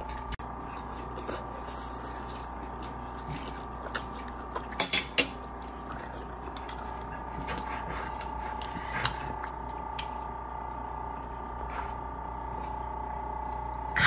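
Quiet eating and handling sounds: scattered sharp clicks and smacks, with a close pair about five seconds in, over a faint steady whine.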